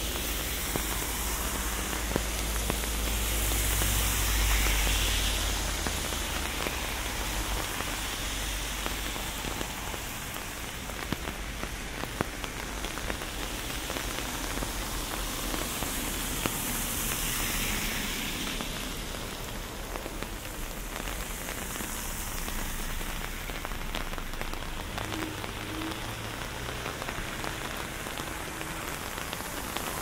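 Steady rain falling, with many separate drops ticking close by. The hiss swells louder about four seconds in and again around seventeen seconds, over a low rumble underneath.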